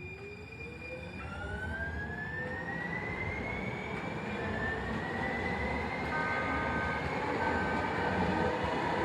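San Diego Trolley light rail train pulling away, its traction motors giving a whine of several tones that rises in pitch as it accelerates. It grows louder throughout over a rumble of wheels on rail.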